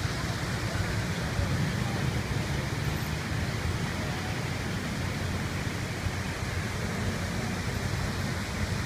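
Steady rushing of floodwater, an even unbroken roar with no distinct events.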